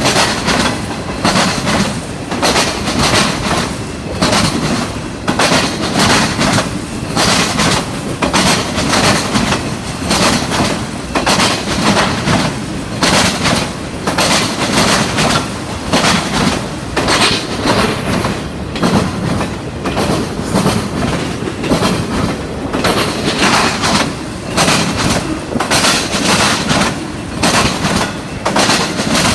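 Norfolk Southern freight train's cars rolling by, loud, with the wheels clacking over rail joints in a steady, repeating rhythm over a continuous rumble.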